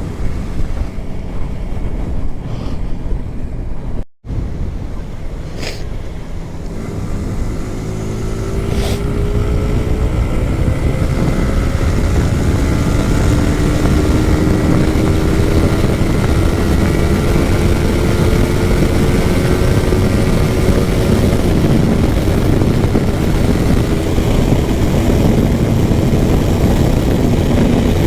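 Yamaha R15M's single-cylinder engine running on the move. After a brief break in the sound about four seconds in, its pitch climbs slowly and steadily as the bike gathers speed, over a steady rush of wind and road noise.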